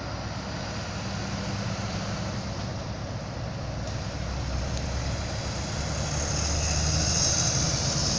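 Siemens ER20 diesel-electric locomotive running as it pulls a passenger train slowly into the station, its low engine drone growing louder as it comes closer. A high hiss joins near the end.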